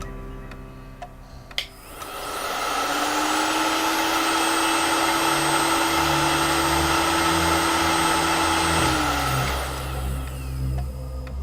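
Heat gun running: a steady blowing rush with a fan-motor hum. It winds up about two seconds in and winds down near the end.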